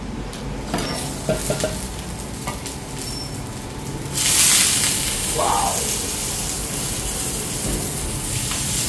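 Smoked fish (tinapa) laid on a hot, oiled metal flat-top griddle, setting off a sudden loud sizzle about four seconds in that carries on as a steady frying hiss. Before that there are only a few light clicks and taps.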